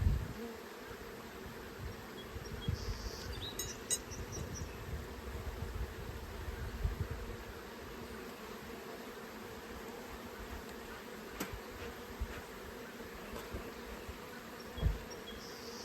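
Honeybees buzzing in a steady hum around an opened hive, with irregular low bumps.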